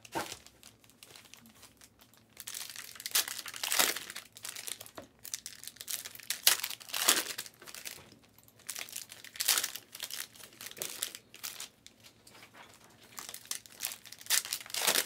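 Plastic trading-card pack wrappers crinkling and being torn open, in irregular bursts with short pauses between.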